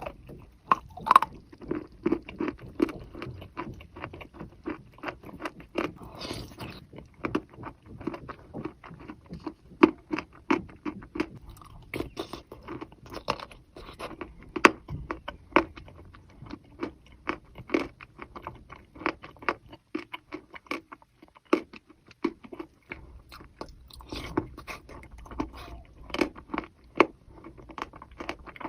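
Close-up biting and chewing of wet chalk in a thin clay paste: rapid, irregular crunches several times a second.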